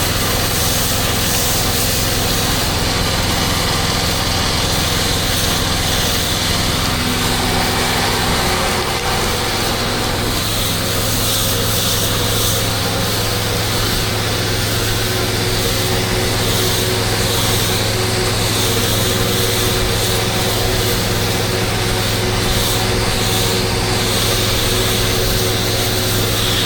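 Pressure washer's gas engine running steadily under the constant hiss of its high-pressure water jet spraying. The engine note shifts slightly about eight seconds in.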